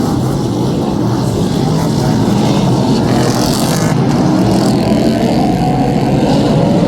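Superstock speedway cars' V8 engines running loudly, with the engine pitch slowly climbing in the second half.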